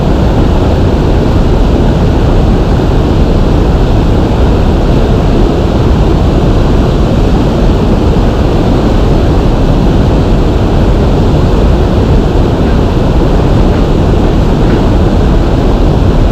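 Loud, steady rush of river water pouring over a low-head dam, deepest in the low end and unbroken throughout.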